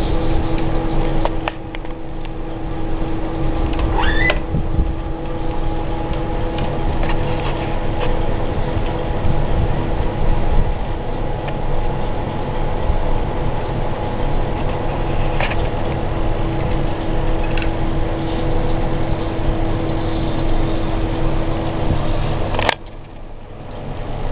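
Hobby servo motors of a 5-degree-of-freedom robotic arm humming and whining steadily as they drive and hold the joints, with a few faint clicks. The sound drops off abruptly near the end.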